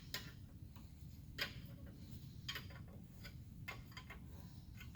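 Faint, light metallic clicks and taps at uneven intervals, a dozen or so, as a 19 mm wrench is worked on a bolt in the transmission case.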